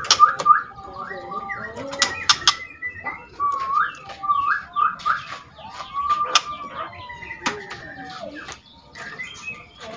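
Juvenile white-rumped shama practising its song: runs of short rising whistled notes, about four or five a second, at the start and again around the middle, and one longer arching whistle a little after, mixed with sharp clicks and rattles.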